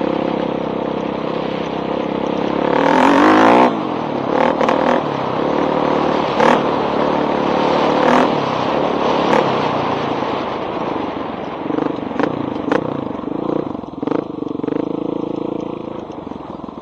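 1985 Honda XR350R's air-cooled single-cylinder four-stroke engine running through a loud pipe as the dirt bike is ridden, revving up hard about three seconds in. Sharp clacks come through now and then, and near the end the engine drops back to a low, pulsing run.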